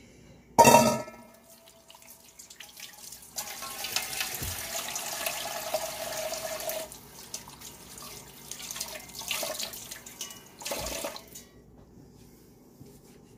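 A stainless-steel mixing bowl knocks against a kitchen sink with a brief metallic ring. Then the kitchen faucet runs for about three seconds, followed by softer splashing from hand-washing under the tap and a thump.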